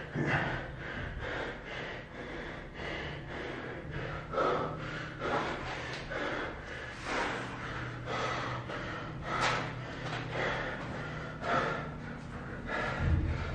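A man breathing hard and fast through his nose and mouth, winded from sets of burpees: loud breaths at a little over one a second.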